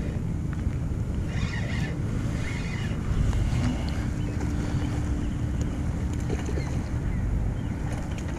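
Steady wind rumble on the microphone while a spinning reel is cranked to reel in line, with brief rustles of handling. A faint steady hum joins about halfway through.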